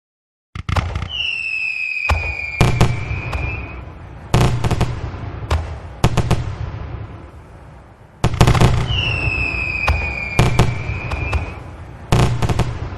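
Fireworks going off: a series of sharp bangs with crackling and a rumbling tail. A whistling rocket, its tone falling slightly, sounds about a second in and again about nine seconds in.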